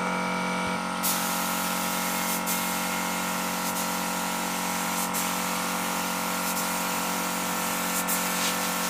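Gravity-feed spray gun hissing as it sprays PU polish, starting about a second in, with brief breaks every second or so. Underneath, the steady hum of the air compressor feeding it.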